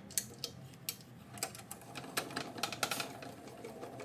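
Small metal drilling chips being swept across and off a bench drill press table: a run of irregular light clicks and ticks.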